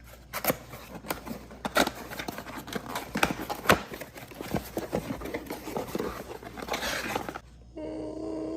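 Quail eggs being cracked open by hand, a rapid, irregular run of small sharp eggshell cracks and crunches for about seven seconds. Near the end a short, steady pitched tone sounds.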